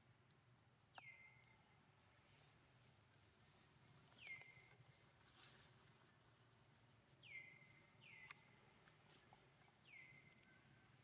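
Faint high animal chirps, five of them a few seconds apart, each sweeping quickly down in pitch and levelling off, over a quiet outdoor background with a couple of soft clicks.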